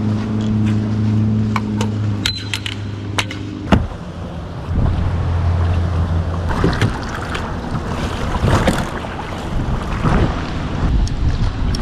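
Fishing gear and a plastic kayak being handled against concrete, with scattered knocks and clicks and irregular rustling rushes. A steady low engine hum runs through the first few seconds and cuts off abruptly with a click.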